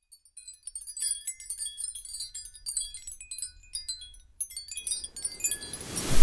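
Intro sound effect of sparkling chime tinkles, many quick high notes scattered irregularly, then a whoosh swelling up near the end into a loud hit.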